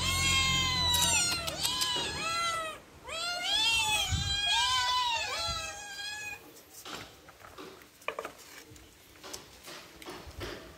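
Several cats meowing in quick succession, with short, high, overlapping meows that die away about six seconds in, leaving a few faint clicks.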